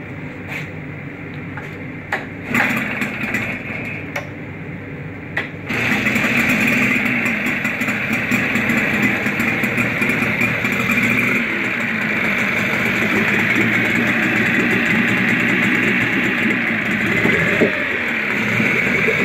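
Tohatsu M12A 12 hp two-stroke outboard motor starting on a test run: a few short clatters, then it catches about six seconds in and runs steadily, its leg in a test tank of water.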